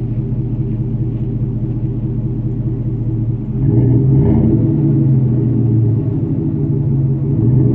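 Exhaust of a 5.3 L V8 running through a Flowmaster 40 single-in, dual-out muffler and 3.5-inch tips: a steady, deep exhaust rumble. About halfway through it grows louder and holds there.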